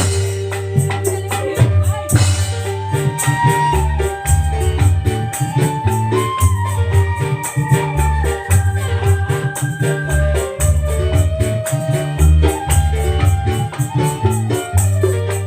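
Loud music with a heavy bass, a keyboard melody and a fast, steady shaker rhythm, played over a sound system during a sound check.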